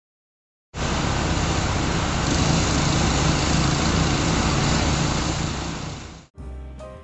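Engine-driven hot-water pressure washer running, a steady hiss of spray over a low engine hum; it cuts in suddenly and stops abruptly after about five and a half seconds.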